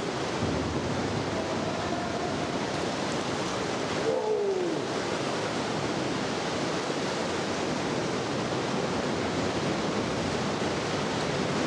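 Ocean swell surging and washing through a sea cave: a steady, unbroken rush of water.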